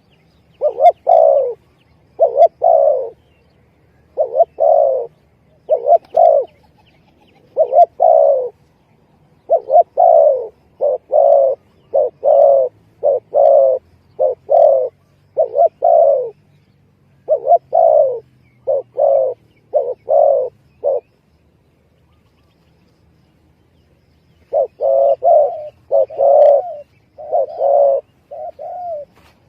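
Spotted dove (tekukur) cooing as a lure call: a long series of short, low coo notes in repeated phrases. The cooing pauses for about three seconds near the end, then resumes.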